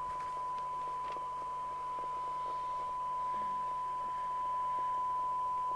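Steady 1 kHz test tone from a signal generator, received by a Radiomobile CB202 FM CB radio and heard from its speaker over a light hiss. The generator is set to about 0.1 microvolts, the weakest signal at which the tone can still be heard.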